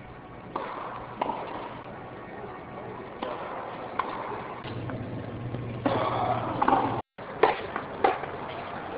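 Tennis rally on an indoor court: a series of sharp pops from a racket striking the ball and the ball bouncing, spaced irregularly, with the loudest near the end. Under them is the low murmur of a seated crowd and a steady hum.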